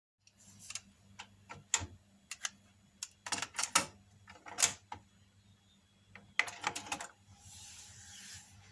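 Nakamichi BX-2 cassette deck being handled: a run of irregular mechanical clicks and clunks from its cassette door and transport buttons over a faint low hum, then a second or so of soft tape hiss near the end as playback starts.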